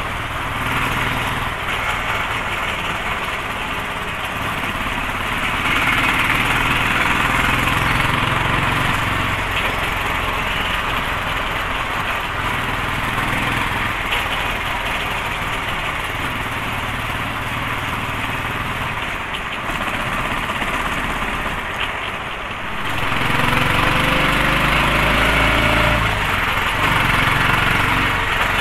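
Royal Enfield Thunderbird's single-cylinder four-stroke engine running steadily under way, with wind rush over the microphone. About three-quarters of the way through the engine eases off for a moment, then comes back louder and rises in pitch as the bike accelerates.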